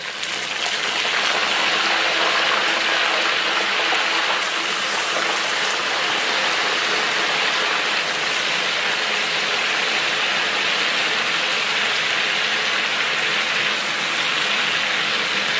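Chopped chicken pieces sizzling in hot rendered pork-belly fat in a large wok, a loud steady frying hiss that swells over the first second or two as the chicken goes in and then holds.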